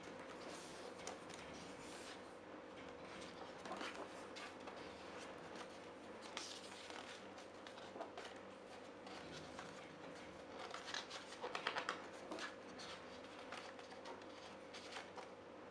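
Pages of a hardcover photobook being turned by hand: soft paper rustles and flaps, with a quicker run of them in the last third, over a faint steady hum.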